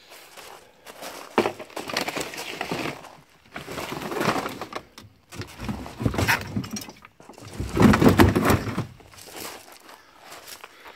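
Junk being shifted about in a wooden trailer: several spells of clattering, knocking and scraping, the loudest about eight seconds in.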